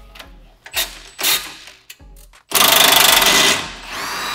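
Cordless impact wrench on a rear suspension bolt: a few light clicks as it is fitted, then a loud second-long burst of rapid hammering as it breaks the bolt loose, settling into a steady motor whine as the bolt spins free while its nut is held from behind with a wrench.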